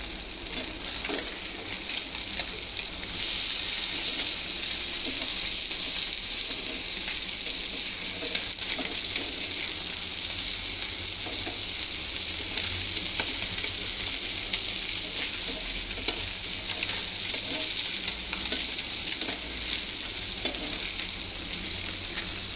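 Puti fish (small barbs) frying in hot oil in a pan: a steady high sizzle that gets a little louder about three seconds in, with occasional light scrapes and taps of a spatula stirring them.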